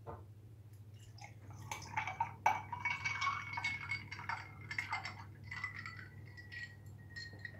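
Apple and carrot juice poured from a mixing bowl into a glass over ice cubes: a thin trickling pour that starts about two seconds in, with small clinks against the glass.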